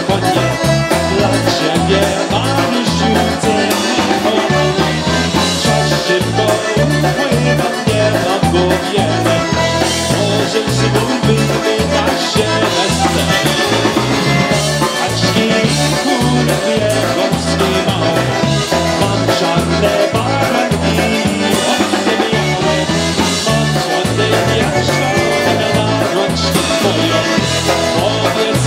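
A live polka band plays an instrumental passage: accordions carry the tune over an electric bass's steady alternating oom-pah bass notes and a drum kit.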